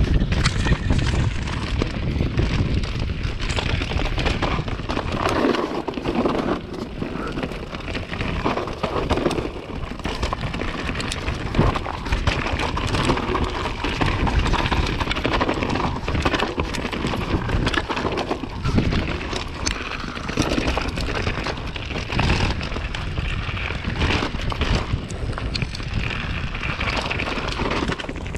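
Trek mountain bike descending a muddy, gravelly singletrack: wind buffeting the camera microphone with a low rumble, over tyres rolling on loose stones and dirt and the bike clattering and knocking over the rough ground.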